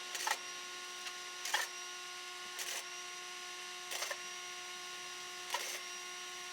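Short crackling bursts of plug welding, one roughly every second and a half, over a steady machine hum.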